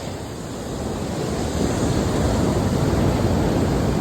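Surf and wind at the seashore, with wind buffeting the microphone; the noise grows louder about a second in.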